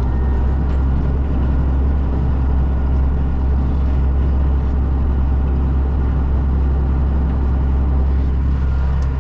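Farm tractor engine running steadily under load, driving a bush hog rotary cutter that is mulching plants in the field.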